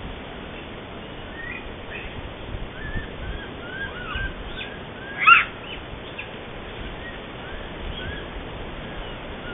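A run of short, high animal calls, each rising and falling in pitch, coming every half second or so, with one louder, higher call about five seconds in, over a steady background hiss.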